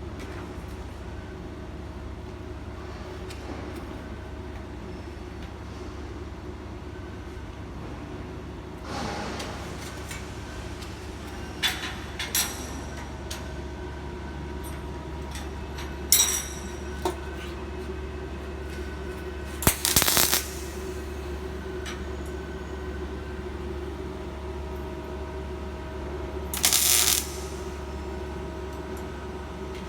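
Steady low machine hum in a metal workshop, broken by a few sharp metallic clinks and knocks and two short hissing bursts, one near the middle and one near the end.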